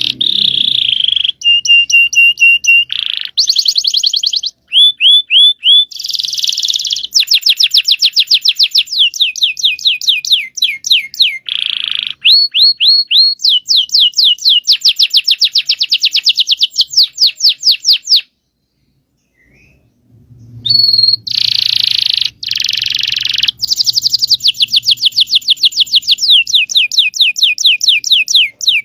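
Domestic canary singing a long song of fast rolling trills, runs of rapidly repeated high notes, with a short break about two-thirds of the way through before it resumes.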